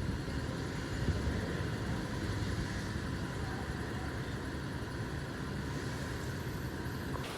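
Fire truck's engine running, a steady low rumble.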